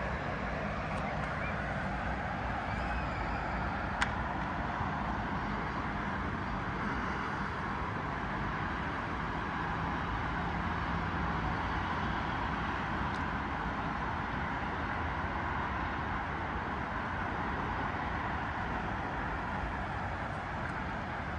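Steady wash of distant city road traffic, with one sharp click about four seconds in.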